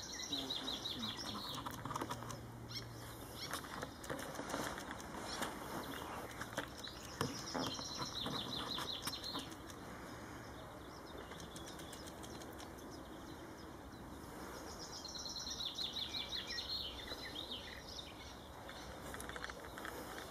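Songbirds singing in short, high trilled phrases that come back every few seconds, with scattered clicks underneath.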